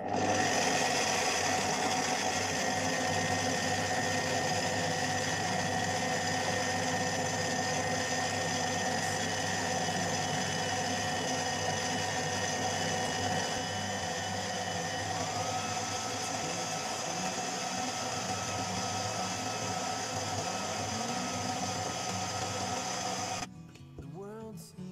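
Kenwood stand mixer running steadily, its motor and beater working butter, sugar and flour into a pastry dough; it cuts off suddenly near the end.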